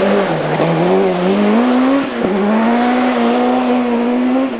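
Group B rally car engine pulling hard at high revs: the pitch climbs, drops sharply about two seconds in as it shifts up, then holds high.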